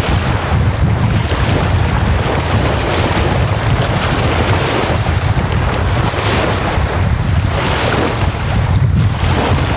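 Small wind-driven waves breaking and washing up a sandy lake shore in repeated surges, under a steady gusty wind that rumbles on the microphone.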